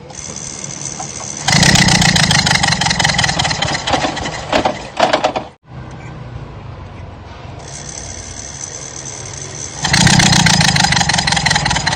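Toyota Camry Hybrid's 2.4-litre four-cylinder engine running, in short cut-together stretches that swell louder about a second and a half in and again near the end. The engine misfires and loses coolant, a fault the mechanic puts down to a failed head gasket.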